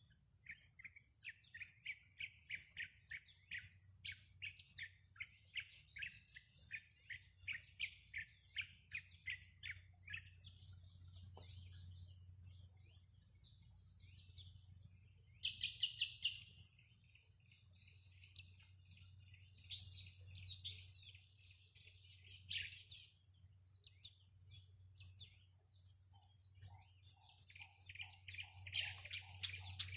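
Songbirds chirping and singing: a long run of quick chirps through the first ten seconds, a short loud burst of notes about halfway through, and loud falling whistles about two-thirds of the way in, with more chirping toward the end.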